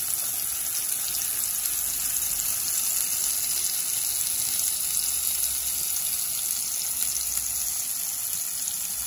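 Two beef burger patties sizzling steadily in a little oil in a ridged grill pan.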